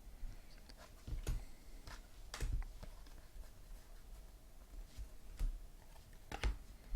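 Baseball trading cards being handled, slid and set down: about five soft taps and rustles spread over several seconds.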